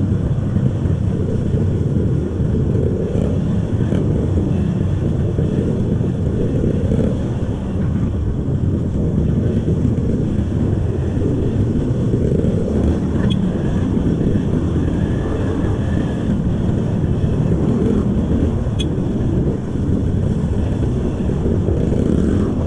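Kawasaki KLX trail bike's single-cylinder four-stroke engine running through its stock exhaust while riding off-road, heard as a steady low rumble mixed with wind on the microphone.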